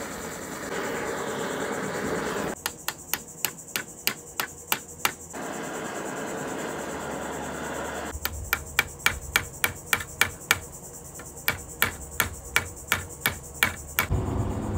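A propane torch hisses steadily as it heats the end of a copper rod held in a vise. A hammer then peens the rod end in a run of about a dozen sharp metal strikes, about four a second. The torch hisses again for a few seconds, then a longer run of about twenty strikes hammers a head onto the rod to form a clevis pin.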